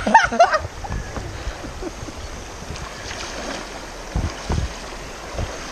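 Steady rush of a flooded, fast-flowing creek, with wind buffeting the microphone in a couple of low thumps about four seconds in.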